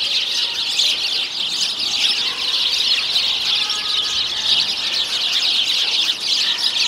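A flock of many small birds chirping and chattering all at once, a dense high-pitched twittering that goes on without a pause.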